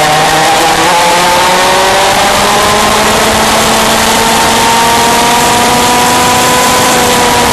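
Yamaha KT100 piston-port two-stroke kart engine at racing speed, its pitch rising over the first three seconds as it accelerates, then holding high and steady with a slight dip near the end.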